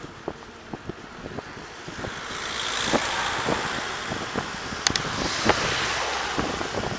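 Passing car and van swelling past a moving bicycle from about two seconds in, with tyre and engine noise. Wind buffets the microphone, and short knocks and clicks come from the bike jolting over the road.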